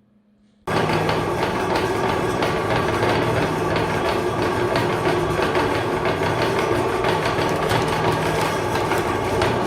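Electric meat grinder switched on under a second in, then running steadily with a motor hum and a dense rattling clatter.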